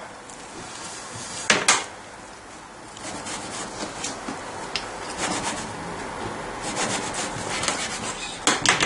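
Knife sawing back and forth through the crusty, hot-baked spelt loaf on a wooden cutting board, a rasping scrape. Two sharp knocks on the board about a second and a half in, and two more near the end.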